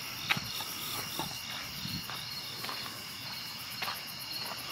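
Crickets and other night insects chirping steadily in a fast, even pulse, with the soft, irregular footsteps of someone walking along a path.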